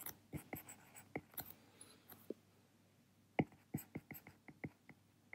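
Stylus tapping and scratching on a tablet screen while handwriting Japanese characters: faint short clicks, several a second, with a pause of about a second midway.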